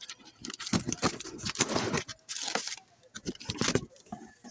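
Cardboard delivery carton being opened by hand: packing tape tearing, cardboard flaps scraping, and plastic snack bags crinkling inside, in irregular bursts.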